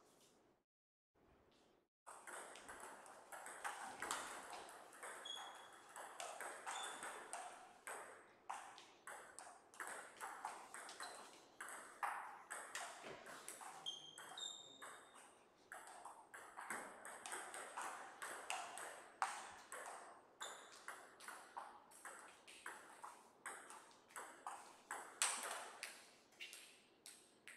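Table tennis ball clicking on the paddles and table in a steady run of sharp strikes and bounces through rallies, starting about two seconds in.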